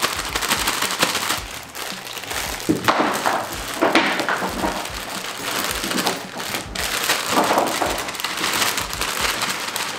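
Plastic salad bag crinkling and rustling as bagged romaine salad is shaken out of it into a bowl, in an irregular run of crackles.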